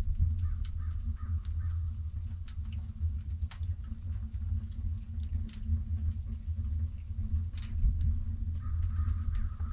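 Wood fire crackling in a 55-gallon steel drum barrel stove, first lit: scattered sharp pops from the burning kindling and split logs over a steady low rumble.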